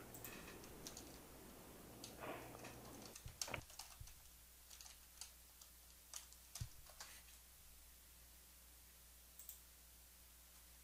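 Faint computer keyboard typing: scattered, irregular keystrokes and clicks, thinning out after about seven seconds, over a faint low hum.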